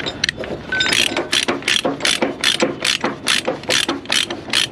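Ratchet chain binder being cranked to tighten a tie-down chain on a load, its pawl clicking in a steady rhythm of about three strokes a second, starting about a second in.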